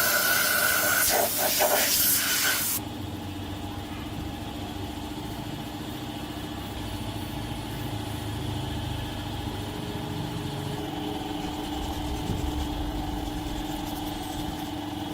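A loud spraying hiss for nearly three seconds that cuts off sharply, followed by a steady mechanical hum with a low rumble underneath.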